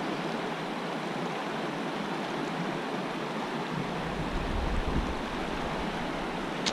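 Shallow river current rushing and rippling over boulders, a steady wash of water noise. About four seconds in, wind buffets the microphone with a brief low rumble.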